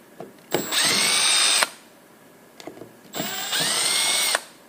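Power drill-driver backing out the screws that hold the base of a carburetor on, in two short runs of about a second each; each time the motor's pitch rises as it spins up and then holds steady.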